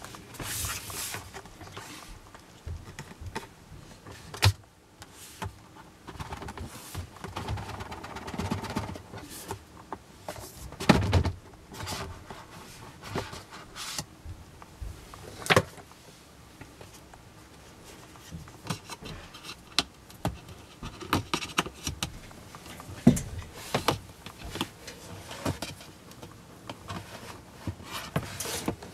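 Cardboard Apple iPad box being handled and opened by hand: soft rubbing of cardboard as the lid is worked off the base, a longer stretch of it about seven to nine seconds in, among scattered taps and knocks against the box and desk, a few of them sharper.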